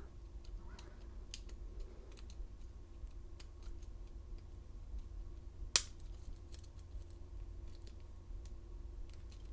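Faint, scattered clicks and scrapes of a lock pick working the pins of a steel laminated padlock held in a false set, with one sharp, louder click nearly six seconds in.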